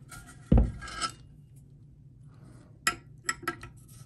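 A metal half-inch wrench knocking and clinking against a toilet tank bolt and its nut as the nut is tightened: one heavier knock about half a second in, then a few sharp metallic clicks near the end.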